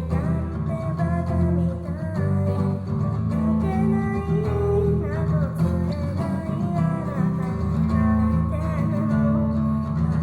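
A singer singing a Japanese pop song while playing an acoustic guitar, with the chords strummed and picked under the vocal melody.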